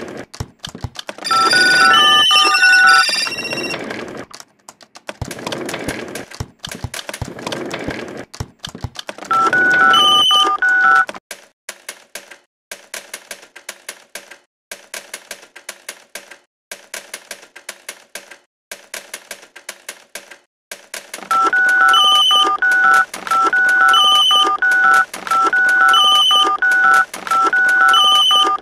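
Electronic telephone ringtone, a short stepped beeping melody repeating about every two seconds, heard near the start, again about ten seconds in, and steadily through the last seven seconds. In between comes a run of quick, irregular clicks.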